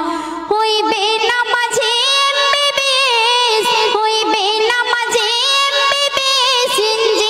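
Young girl singing a Bengali Islamic song into a microphone, holding long drawn-out notes with a wavering vibrato.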